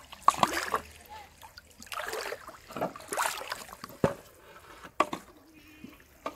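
River water splashing and sloshing as a hooked fish thrashes at the surface and is lifted out, with water stirred by someone wading chest-deep. Three sharp knocks come in the second half.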